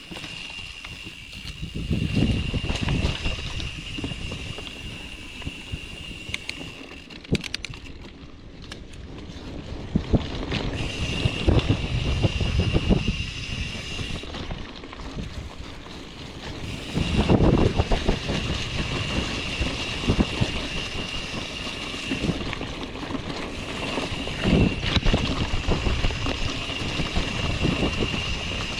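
Mountain bike descending a rough, rutted dirt track, with wind buffeting the microphone and the bike rattling over bumps. A thin steady high whine drops out and returns several times.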